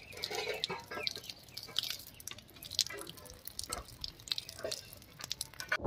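Soaking water being poured off rice from a steel bowl, running through the fingers and spattering and dripping in short, uneven splashes.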